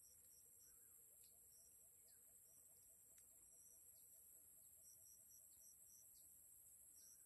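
Faint rural ambience: a steady high-pitched drone of insects, with brief high chirps now and then and a soft, rapid ticking underneath.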